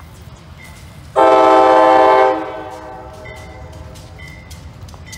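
Air horn of the lead GE B36-7 diesel locomotive sounded in one short blast of about a second, a loud multi-note chord that echoes away briefly after it cuts off.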